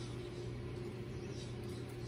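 Steady low mechanical hum with a fainter higher tone running along with it, and faint scattered crisp ticks above it.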